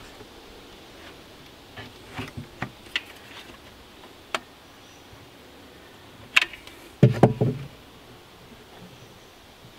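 Caulking gun being handled and squeezed while laying construction adhesive into a plywood corner: scattered sharp clicks and light knocks, then a louder cluster of clunks about seven seconds in.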